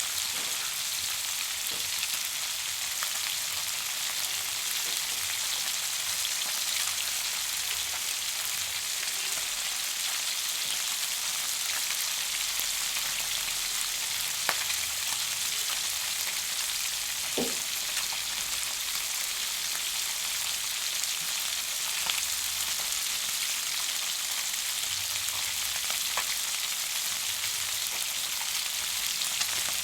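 Food sizzling in a frying pan: a steady high hiss with scattered sharp pops and crackles of spattering fat.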